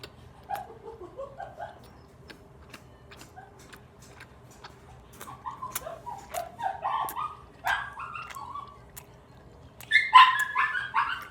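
A dog whining and yipping in short, high, pitched cries that come in clusters and grow louder, loudest near the end.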